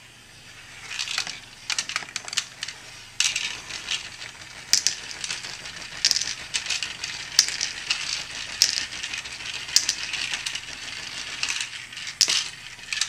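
Motorized plastic toy wok rocking and spinning, starting about a second in, its load of small plastic food pieces rattling against the plastic bowl, with frequent sharper plastic clicks as pieces are picked out with plastic tongs.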